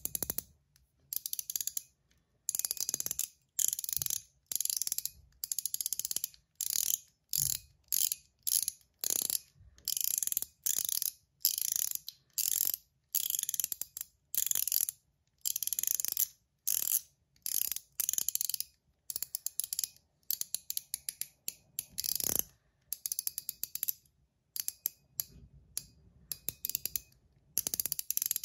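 A Gao Studios Chiz mechanical fidget ring, a PEI and stainless steel band, being twisted by the fingers so that its spring-loaded ball detents click. The clicks come in short, fast runs, one run after another, roughly every second.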